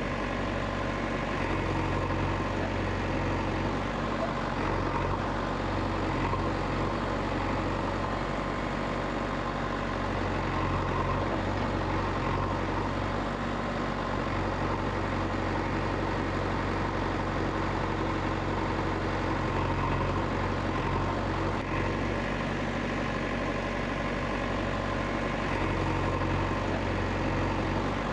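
A heavy vehicle engine running steadily with a low drone, its pitch and load shifting slightly every few seconds.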